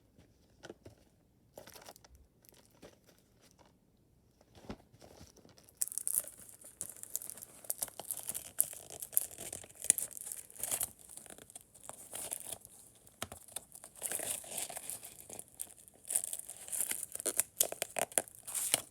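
Plastic shrink-wrap being torn and peeled off a Blu-ray case, crinkling irregularly. It starts with a few faint handling clicks, and the loud crinkling begins about six seconds in.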